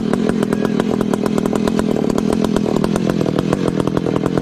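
Two-stroke chainsaw with a 42-inch bar running steadily.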